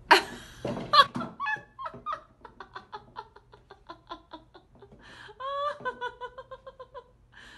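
A person laughing: a sudden loud burst at the start, then quick giggles at about four or five a second that fade, and a higher, held bout of laughter in the second half.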